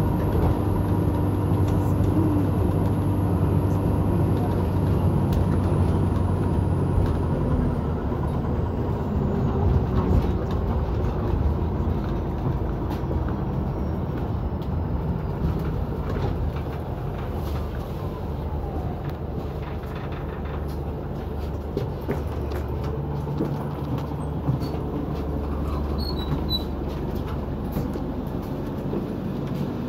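Inside a moving double-decker bus: steady engine and drivetrain rumble with small rattles and clicks from the bodywork, and a faint high whine that falls in pitch about eight seconds in. The running gets quieter in the second half as the bus slows.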